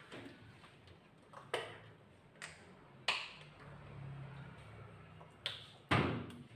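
Scattered sharp knocks and slaps as a plastic shampoo bottle is squeezed and handled over a dog-washing tub. The loudest comes near the end, as the bottle is set down on the tub's plastic floor grate.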